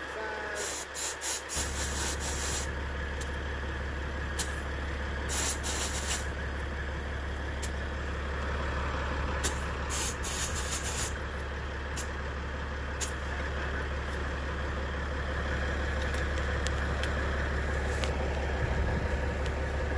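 Compressed air hissing in short bursts through an air chuck on a trailer tire's valve stem as the tire is aired up, with a few sharp clicks. A steady low hum comes on about a second and a half in.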